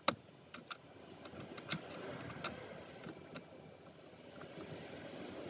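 Small screws and a torque screwdriver being handled at the car's console trim: a sharp click right at the start, then a handful of lighter, irregular clicks and taps over a low rustle of handling.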